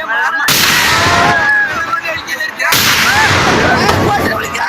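Fireworks display of a Kerala temple-festival vedikettu: a loud blast about half a second in and another just under three seconds in, each trailing off in a long crackling rumble, with voices shouting over them.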